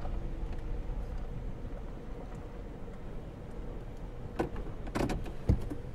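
Car travelling on the highway, a steady low rumble of road noise heard inside the cabin, with a few sharp knocks and clicks in the last second and a half.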